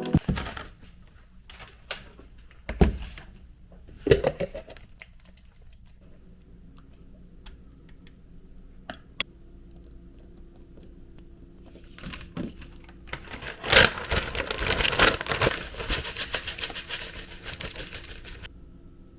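Handling sounds from making breakfast: scattered knocks and clicks, then about five seconds of dense crackling and rustling near the end.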